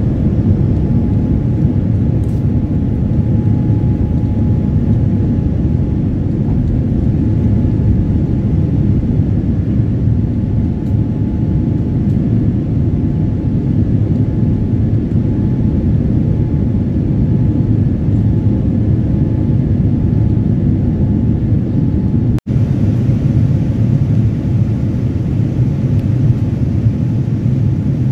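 Steady roar of a Boeing 787-9's engines and airflow heard inside the passenger cabin during the climb after takeoff. The roar is mostly deep, with a faint steady tone above it, and cuts out for an instant about 22 seconds in.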